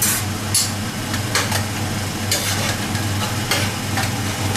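A utensil stirring and scraping around a large aluminium sauté pan in repeated short strokes, with a tomato and tuna sauce sizzling in it over a steady low hum.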